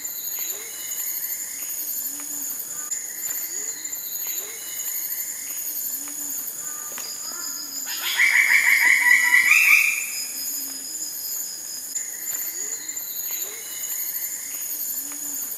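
Tropical rainforest ambience: a steady high-pitched drone of insects with low calls repeating every second or two. About eight seconds in, a louder run of bird calls rises in pitch and lasts about two seconds.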